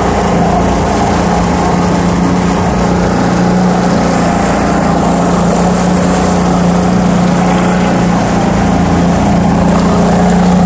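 Outboard motor of a small motorboat running steadily at cruising speed, a constant hum with no change in pitch, with water rushing past the hull and wake.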